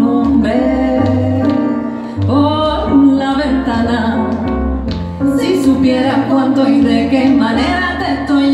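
Live band playing a song: female voices singing over keyboard and a low bass line.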